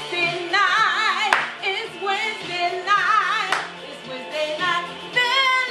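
Gospel praise music: a woman singing sustained notes with strong vibrato over a steady backing, with two sharp hand claps.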